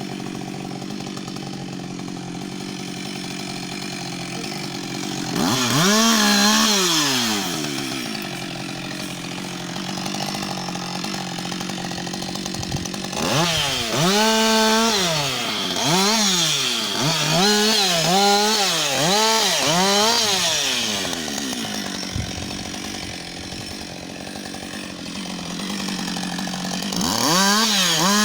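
Husqvarna 560 XP two-stroke chainsaw idling, then revved up and dropped back several times: once about five seconds in, a run of about six quick revs in the middle, and again near the end.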